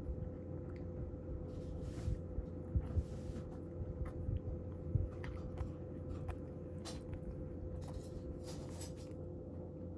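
Cat crunching dry kibble from a wooden bowl, irregular small crunches and clicks, over the steady hum of a fan heater. A few brief rustling noises, the loudest about eight to nine seconds in, as the cat moves up close.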